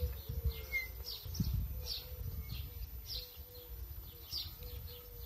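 Small birds chirping in short, repeated falling notes, about two a second, over the low rumble and broken motor whine of a moving mobility scooter.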